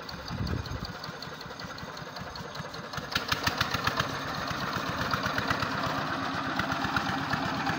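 Small tractor's engine running as it drives pulling a disc plough. The engine gets louder about three seconds in, with a fast, even pulsing.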